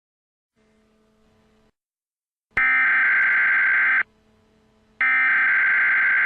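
Harsh electronic alert buzzer sounding in two blasts of about a second and a half, a second apart, with a faint hum between them.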